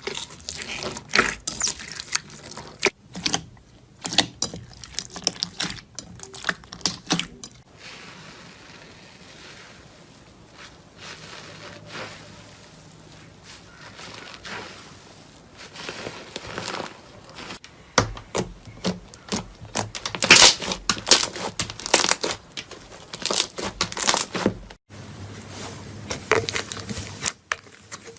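Slime being squeezed, stretched and pressed by hand: dense small crackles and pops. It quiets to a soft squish for several seconds partway through, then turns busy and loud again.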